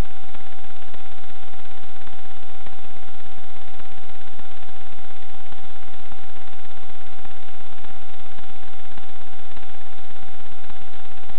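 Steady electronic static from the camera's own recording circuit: a constant hiss with a high, unchanging whine on top and no other sound.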